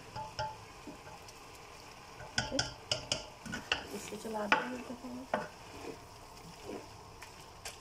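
Long wooden spoon stirring thick cooked mustard-greens saag in a large aluminium pot, with scattered knocks and scrapes of the spoon against the pot, most of them between about two and five and a half seconds in.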